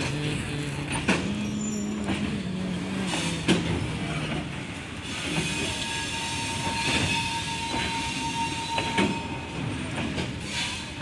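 Freight train wagons rolling past over the level crossing: a steady rumble with wheels clacking over the rail joints. A thin wheel squeal holds for a few seconds past the middle.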